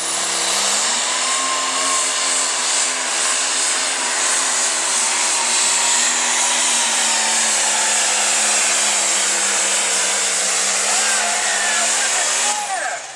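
Light pro stock pulling tractor's turbocharged diesel engine at full throttle, pulling the weight-transfer sled, a loud steady drone with a high turbo whine over it. The engine note rises slightly about a second in and holds, then falls away sharply near the end as the throttle comes off and the pull ends.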